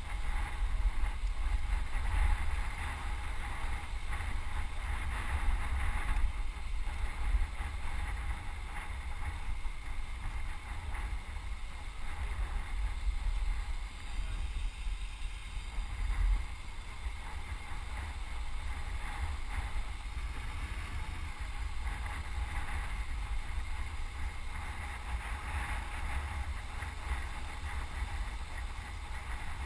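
Wind buffeting the microphone of a GoPro helmet camera on a moving road bike: a steady rumbling rush that swells in gusts during the first half and settles a little after that.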